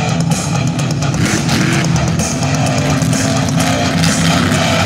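Loud rock music with electric guitar and drums, playing steadily.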